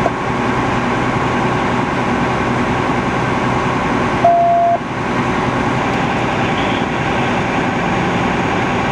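Steady drone of idling vehicle engines, with one short electronic beep about four and a half seconds in.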